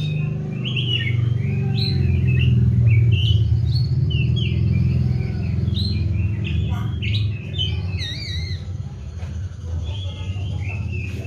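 Oriental magpie-robin (kacer) singing, a run of varied whistled and chirping phrases that rise and fall in pitch, over a steady low hum.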